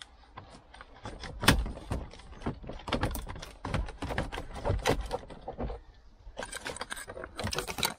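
Plastic center-console trim panels of a 2003 Toyota Land Cruiser 120 being bent up and worked loose by hand, giving a string of clicks, knocks and rattles. The loudest knock comes about a second and a half in, and there is a busier spell of light rattling near the end.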